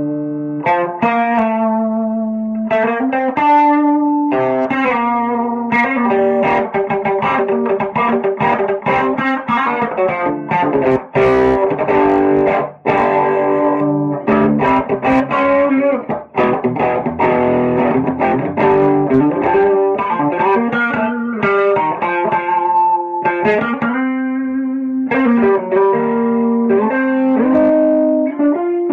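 Electric guitar played through a vintage Orange Matamp OrMat OR200 valve head with KT88 power valves, into a 2x12 cabinet with Celestion Vintage 30 speakers. The playing is a continuous run of chords and single-note lines.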